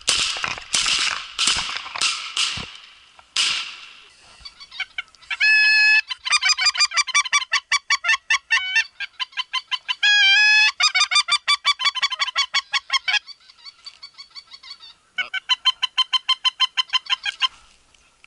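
A goose call blown close by in loud, quick, regular series: drawn-out honks and rapid strings of short clucks, stopping about a second before the end. In the first few seconds, several sharp cracks ring out.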